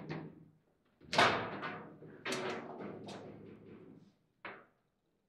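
Foosball table in play: quick clacks of the rods and ball, then a loud bang about a second in as a shot slams into the goal, followed by several more hard knocks that ring briefly.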